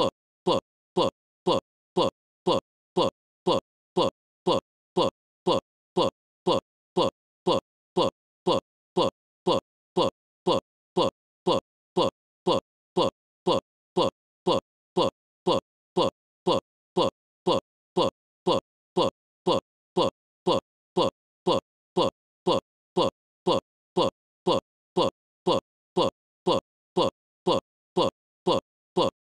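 A very short burst of sound repeating with machine regularity about twice a second, with silence between: a stuck digital audio loop, the kind of stutter a corrupted or frozen stream gives.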